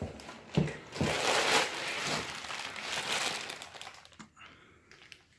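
Packaging crinkling and rustling as the turbo kit's parts are handled, with a couple of light knocks in the first second. It thins out and fades about four seconds in.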